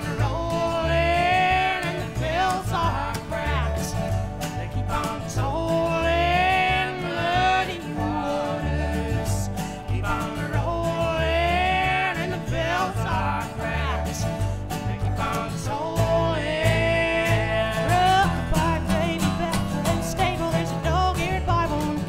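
Acoustic folk band playing live: a woman's lead vocal with male voices singing harmony, over acoustic guitar and upright double bass.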